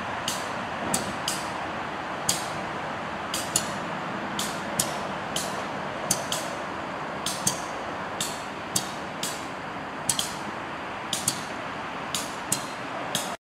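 Freight cars rolling past on steel rails: a steady rolling rumble with sharp wheel clicks, many in quick pairs, as wheelsets cross rail joints.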